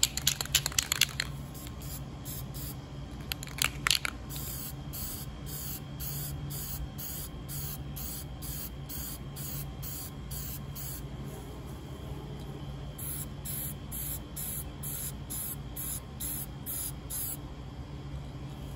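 Aerosol spray paint can spraying in a series of short hissing bursts, about two a second, strongest near the end. A few sharp clicks come near the start and again about four seconds in.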